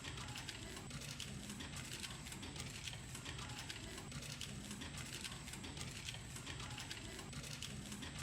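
Industrial chocolate wrapping and labeling machines running: rapid, evenly repeating mechanical clicking over a steady low hum.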